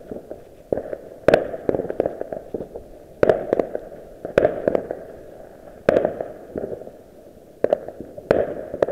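Fireworks exploding in the sky, about seven sharp bangs at irregular intervals with smaller pops between, each bang trailing off in a rumbling echo.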